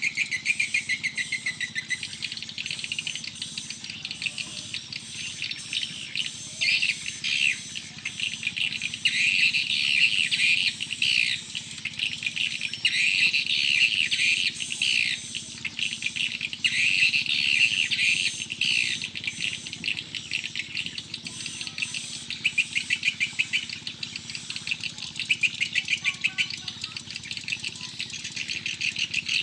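Birds chirping in quick, busy twitters that swell and fade in bouts of a second or two, with insects calling underneath.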